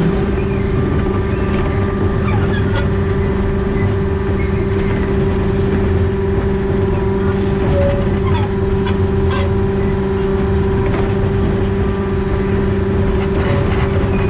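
Diesel engine of a 1910 narrow-gauge locomotive converted to diesel-hydraulic drive, running at a steady drone with a constant hum as the train rolls along. Faint, short squeaks come and go over it.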